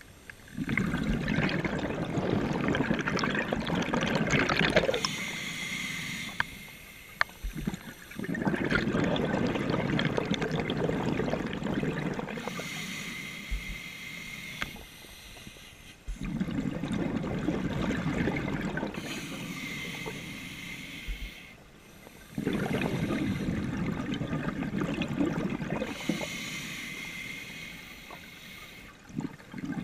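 Scuba diver breathing through a regulator underwater: four long gurgling bursts of exhaled bubbles, about every seven to eight seconds, with quieter stretches of breathing in between.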